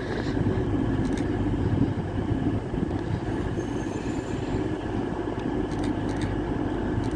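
Class 43 HST power car's diesel engine running steadily as the train arrives at the platform.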